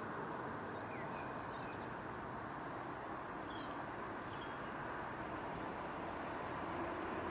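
Distant Vossloh DE18 diesel-electric locomotive approaching, a steady low running noise with a few bird chirps over it; its engine tone grows a little clearer near the end.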